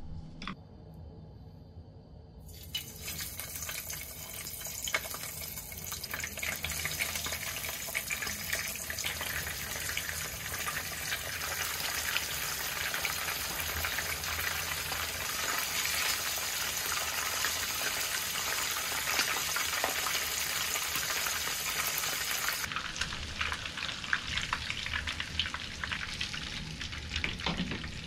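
Sesame-coated mackerel pieces deep-frying in a pan of hot oil: a steady crackling sizzle that starts about two seconds in and turns duller and a little quieter for the last few seconds.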